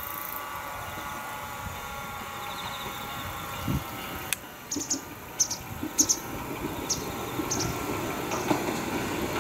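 Izuhakone Railway 1300-series electric train approaching along the track, its running sound on the rails slowly growing louder, with a sharp click and a few short high-pitched squeaks about halfway through.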